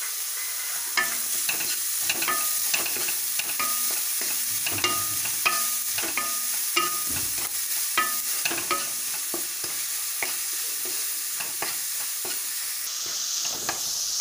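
Chopped cabbage, beans, capsicum and carrot sizzling in a little oil in a kadhai, with a wooden spatula scraping and knocking against the pan about twice a second as they are stirred. The vegetables are being lightly stir-fried to take off their rawness.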